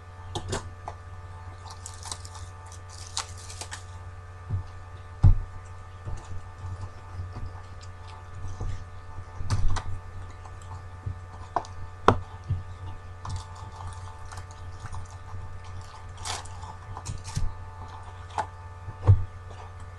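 Steady low electrical hum with a few faint constant tones, under scattered light knocks, clicks and short rustles of things being handled on a table.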